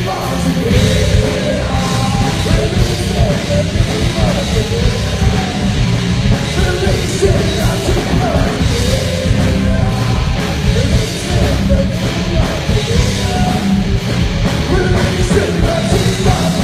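A heavy rock band playing live: distorted guitars and bass under fast, pounding drums, with sung vocals over the top.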